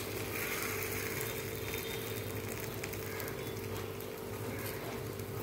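Appe batter frying in an appe (paniyaram) pan: a steady, even sizzle while a spoon turns the balls, over a steady low hum.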